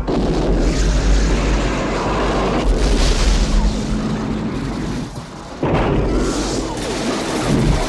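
Rocket booster firing from the rear of an Aston Martin V8 sports car: a loud, continuous rushing blast with a deep rumble. It dips about five seconds in, then surges again.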